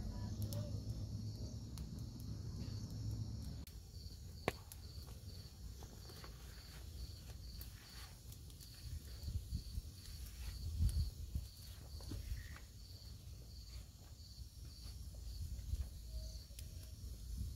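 Crickets chirping in a steady high pulse, two to three chirps a second, with a few sharp pops from a small burning twig campfire.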